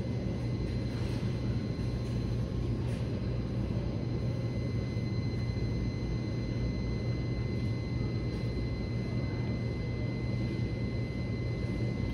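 A steady low hum with thin, steady high tones over it, unchanging and with no distinct events.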